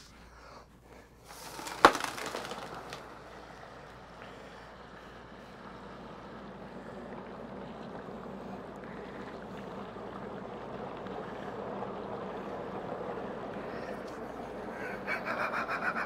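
Water poured from a bucket onto about 25 pounds of dry ice in an ice chest: a sharp knock about two seconds in, then a steady bubbling hiss that slowly builds as the dry ice boils off into fog.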